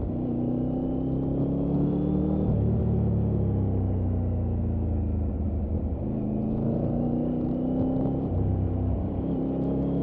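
Triumph Tiger 900 Rally Pro's 888 cc inline three-cylinder engine pulling through the bends at moderate road speed. Its pitch rises under throttle, drops sharply about two and a half seconds in, sags, then climbs again from about six and a half seconds.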